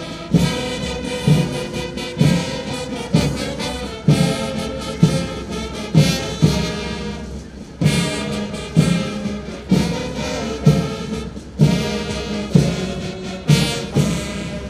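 Uniformed brass band playing a march, trumpets and trombones over a steady bass drum beat about once a second.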